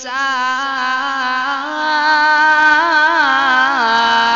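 Male Quran reciter's voice in melodic tajweed recitation, holding one long ornamented vowel with wavering pitch turns that settle onto a slightly lower steady note near the end.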